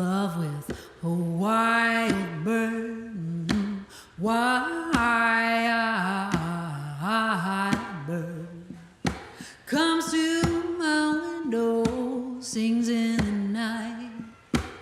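A woman singing a slow melody in long held, gliding notes with no clear words, voice to the fore.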